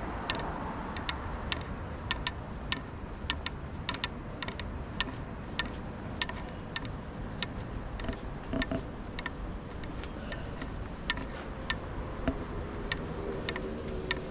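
Footsteps at walking pace on pavement, a sharp click with each step about twice a second, over a low steady street hum.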